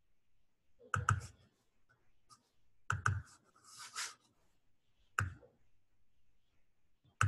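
Computer mouse and keyboard clicks at a desk: a pair of sharp clicks about a second in and another pair about three seconds in, single clicks later, and a short rustle around four seconds.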